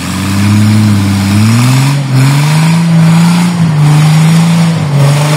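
Off-road 4x4 engine revving up. Its pitch climbs over the first three seconds, dipping briefly twice, then holds high and steady with small dips.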